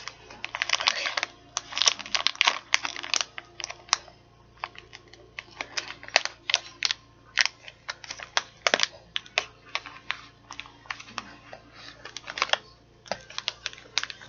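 Plastic food packaging being handled: crinkling with many sharp clicks, densest in the first four seconds and more scattered after.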